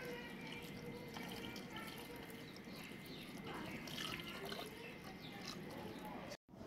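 Water poured from a steel tumbler into a clay cooking pot full of chicken and vegetables: a faint trickle and dripping splash as it runs in among the pieces.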